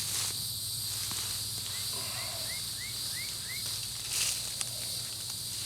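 Steady high-pitched drone of insects in summer vegetation. About two seconds in, a bird gives a run of six short rising chirps, and a brief rustle comes near the end.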